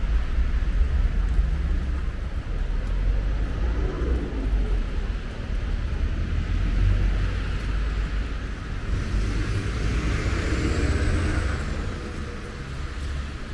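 Outdoor city ambience: a steady low rumble of road traffic, with a hiss that swells and fades again about two-thirds of the way through, as of a vehicle passing.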